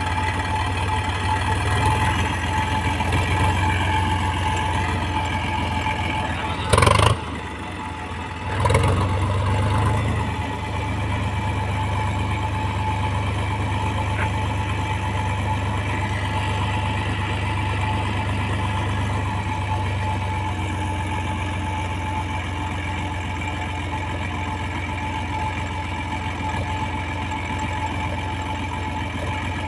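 Tractor diesel engine running steadily with the tractor bogged down in mud. About seven seconds in there is a brief loud burst, and the engine sound swells briefly a couple of seconds later before settling back to a steady run.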